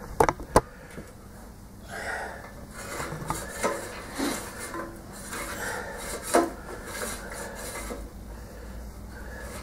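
Metal engine and mower parts being handled: two sharp clicks in the first second, then scattered light knocks and scraping, with one louder knock about six seconds in.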